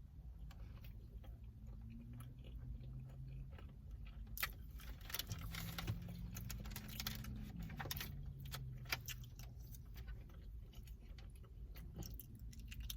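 Eating from a takeout rice-and-beans bowl: quiet chewing with many small clicks and scrapes of a utensil against the container. A faint low hum rises and falls twice in pitch.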